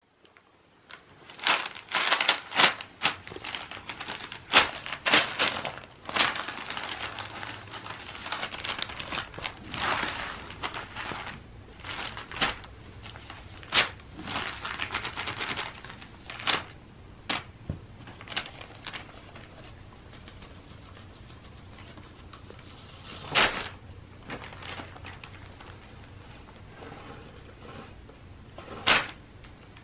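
Brown kraft paper crinkling and crackling as cats paw and pounce at it. The crinkles come in quick bursts, busiest in the first half, then turn sparser, with a couple of sharp louder crackles near the end.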